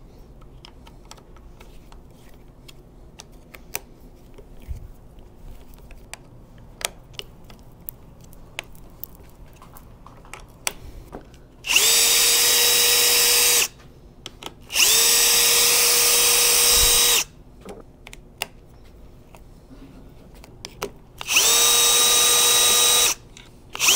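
Cordless electric driver spinning Torx T30 bolts out of an e-bike's motor mount. It runs in four short bursts of a steady whine, each a second or two long, starting about halfway through. Before them come only scattered light clicks of tool on bolt.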